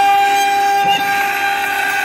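CNC router spindle running with a steady whine as its bit mills into a wooden frame, the level dipping briefly about a second in.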